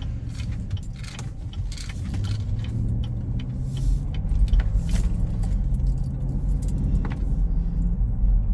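Car driving along: steady low road and engine rumble with scattered light rattling clicks.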